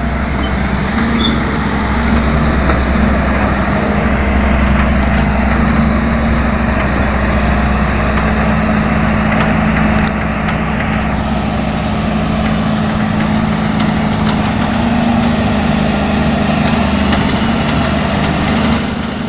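Caterpillar 320 BL excavator's diesel engine running steadily, a constant low engine note, slightly softer from about ten seconds in.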